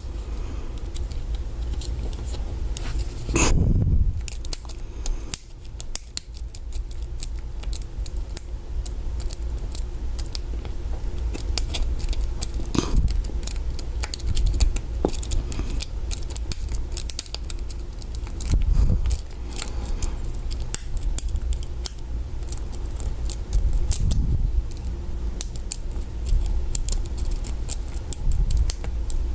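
Small metal lock picks clicking and scraping inside a Master Lock 140 padlock's keyway as it is picked with a hook and tension tool, over handling rumble, with a few louder knocks from the lock being handled.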